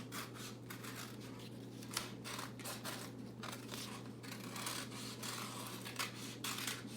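Scissors cutting through a paper plate, a string of short, irregular snips.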